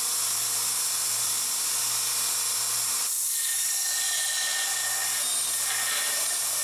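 Narrow belt grinder running steadily. About three seconds in, a carbon-steel chef's knife blade is pressed to the belt and grinds against it, throwing sparks.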